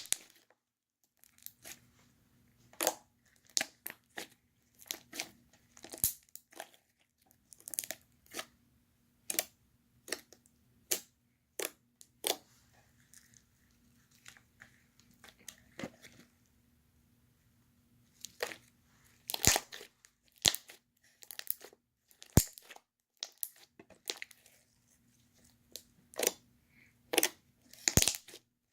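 Homemade slime being handled, stretched and squished, giving many sharp, irregular crackles and pops. The slime is overactivated, so it tears and snaps rather than stretching smoothly.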